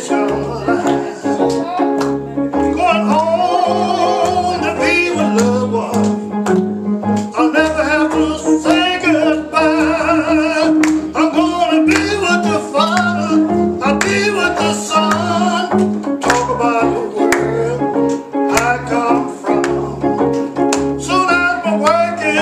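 Live gospel music: singing with vibrato over guitar accompaniment and sustained bass notes.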